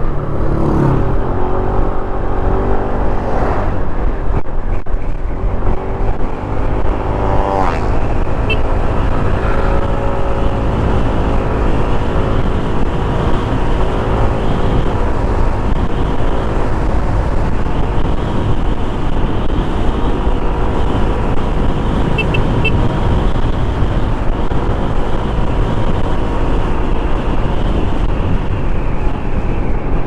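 Kymco KRV 180 scooter's single-cylinder engine under way, its pitch rising as it accelerates near the start and again around eight seconds in, then holding a fairly steady note. Heavy wind and road rumble run underneath.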